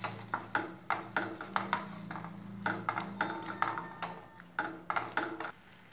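A wooden spatula stirring a tempering in a stainless steel kadai, scraping and knocking against the metal pan in quick, irregular clicks, over a low steady hum.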